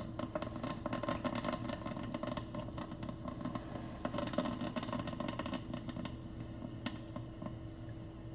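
Mr. Coffee 12-cup drip coffee maker gurgling and sputtering as it pushes hot water through while brewing, a dense crackle over a steady low hum. The sputtering grows gradually quieter near the end of the brew cycle.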